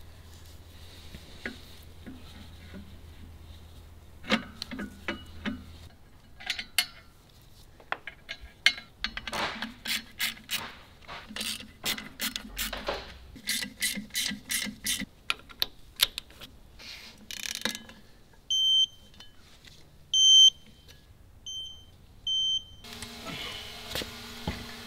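Hand ratchet clicking in quick runs as the clutch pressure-plate bolts are run down onto the LS V8's flywheel, then four short, high-pitched electronic beeps. A steady hum comes in near the end.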